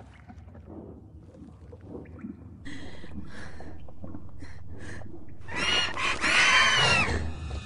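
Sound-designed baby dragon calls: a few short squeaks, then, about three quarters of the way in, loud whining cries that rise and fall in pitch. A low rumble runs underneath.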